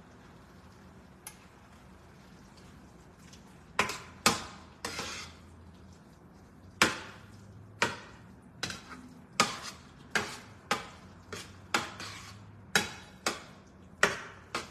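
A cooking utensil knocking against a pot while stirring food on the stove: a quiet start, then from about four seconds in a run of sharp, irregular clacks roughly once a second.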